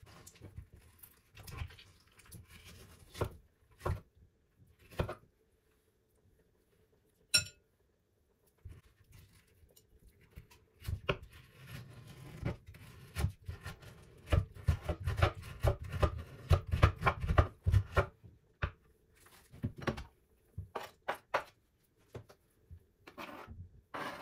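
Metal spoon scraping aloe vera gel out of a leaf against a plastic cutting board: irregular scrapes, taps and clicks, busiest and loudest from about eleven to eighteen seconds in, with a run of dull knocks.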